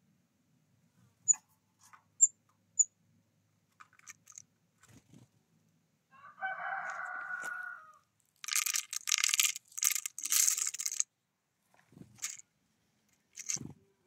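Dry sunflower seeds poured by hand into a wooden feeder tray, rattling in three bursts over about two and a half seconds. Earlier come three short, high bird chips and a pitched call lasting about a second and a half.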